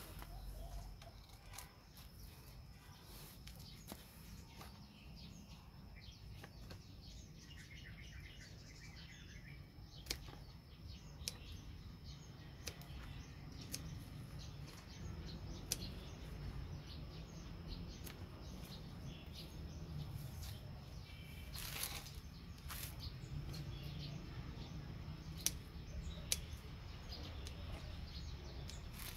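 Kitchen scissors snipping stalks of potted herbs: short sharp clicks now and then, a few seconds apart, over a low steady background.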